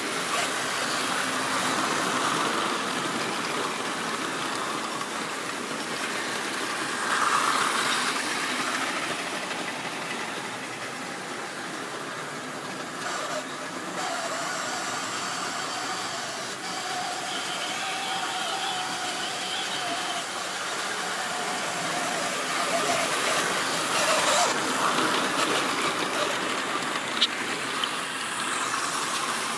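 Model railway trains running on the layout's track: a steady whir of small motors and wheels on the rails, louder as trains pass close, about a second in, around seven seconds in, and again from about twenty-three seconds.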